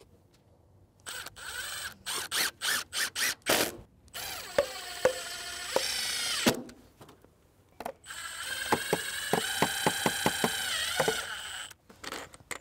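Cordless drill driving screws through a window's metal mounting clips into an ICF foundation wall. It starts with a string of short trigger bursts, then runs in two longer spells of a few seconds each, the second with a regular clicking.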